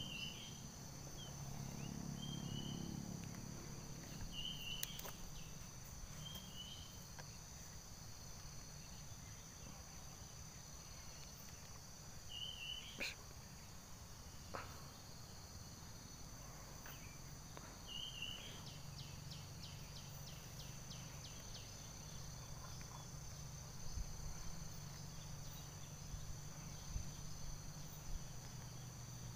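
Steady high-pitched insect song, like crickets or cicadas, with scattered short chirping calls. A quick run of ticks comes about two-thirds of the way through, and a few faint clicks fall in between.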